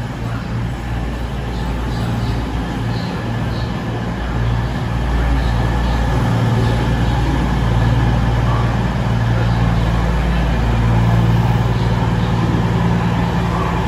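CrossCountry Class 220 Voyager diesel multiple unit moving along the platform on its underfloor diesel engines: a steady low engine drone over rumble, growing gradually louder.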